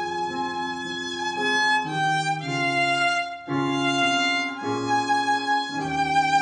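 Violin playing a melody of long bowed notes that change about once a second, over a lower steady accompaniment.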